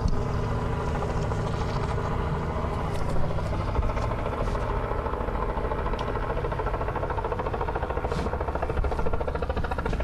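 Engine of a postal delivery truck running close by as it pulls up and stops, then idling with a steady low hum.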